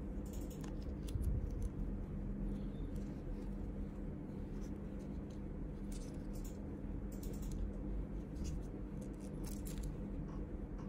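Small plastic Rode Wireless Micro transmitters being handled while furry windshields are fitted onto them and pulled off. Light clicks and scratchy rubs come at irregular moments over a steady low hum.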